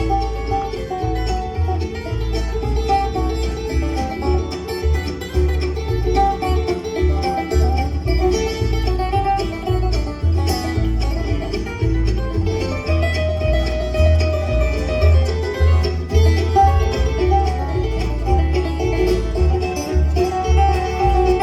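Bluegrass-style music with banjo and guitar, playing steadily.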